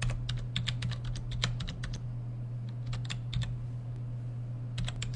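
Computer keyboard being typed on, keying in numbers: a fast run of keystrokes in the first two seconds, a few more about three seconds in, and another short run near the end, over a steady low hum.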